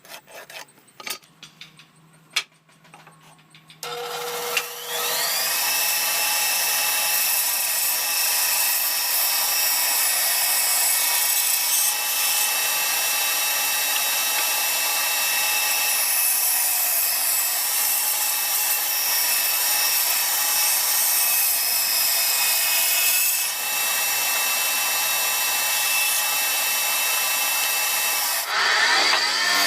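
A few light clicks, then an electric power tool starts about four seconds in, its whine rising as it comes up to speed. It runs steadily on wood, with a brief dip and a change in tone near the end.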